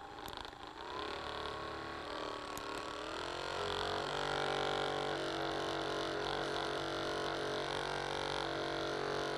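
Roffie RM10 massage gun running, a steady motor hum whose pitch rises about a second in and again around three seconds in as the speed is stepped up, then holds.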